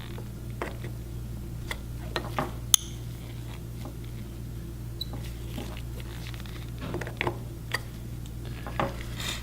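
Small magnets and a steel rod clicking and tapping against a plastic part as the magnets are pushed into their snap-in holes: scattered light clicks, the sharpest about three seconds in.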